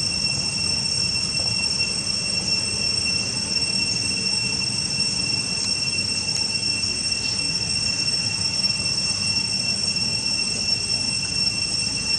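Insects droning outdoors in one steady, shrill, unbroken tone that does not change, over a low rumble.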